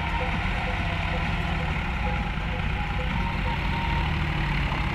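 Tractor's diesel engine running steadily while it drags a land leveller through loose sand.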